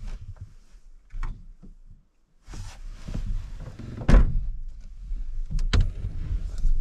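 Knocks, thuds and rustling of a person moving about inside a pickup truck bed under a topper and shutting its rear, with one loud thunk about four seconds in and two sharp knocks near the end.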